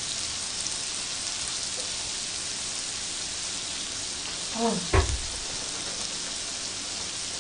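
Thin-sliced pork belly wrapped shrimp sizzling steadily on a tabletop grill. A brief vocal sound and a low thump about five seconds in.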